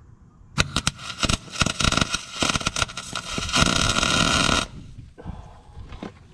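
MIG welding arc crackling and spitting in irregular bursts for about four seconds, settling into a steadier sizzle before it stops; the welds here are coming out porous and sooty, which the welder blames on wind and on a gas bottle he suspects holds compressed air instead of argon or CO2. A single click follows a moment later.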